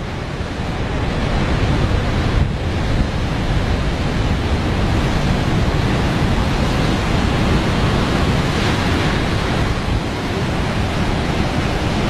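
Heavy surf breaking over rocks: a continuous rush of crashing waves and foaming white water, with a deep rumble underneath.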